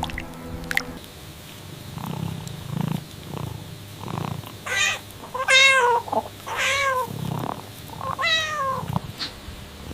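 Cat meowing four times, each call bending in pitch, about a second apart. Softer low sounds come before the first meow.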